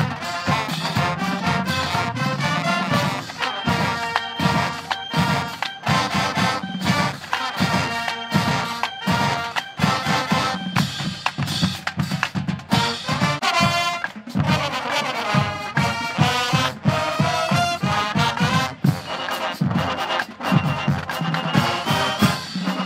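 HBCU-style marching band playing a brass tune with trumpets, trombones, saxophones and sousaphones over a steady pounding beat from the drumline and bass drums.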